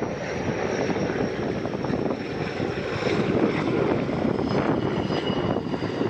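Sikorsky S-64 Air-Crane heavy-lift helicopter running: a dense, fluttering rotor noise with a faint high turbine whine that fades over the first few seconds.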